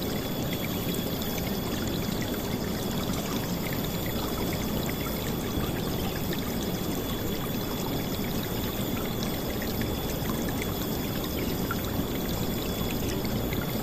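River water flowing over a rocky bed, a steady, even rush of moving water with splashing.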